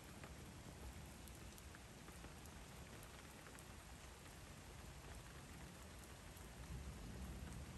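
Rain falling on a wet paved street during a hailstorm: an even, steady hiss with scattered faint ticks.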